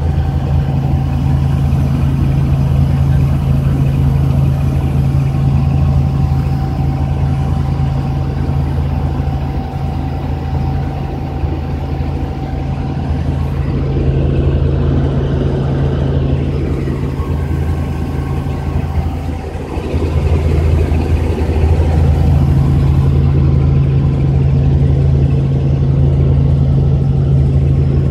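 Helicopter's rotor and engine running in flight, heard from inside the cabin: a loud, steady low drone with a thin steady whine above it through the first half, dipping briefly and growing a little louder again about twenty seconds in.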